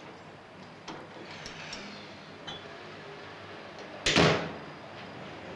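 A few faint knocks, then a door shuts with a single loud bang about four seconds in.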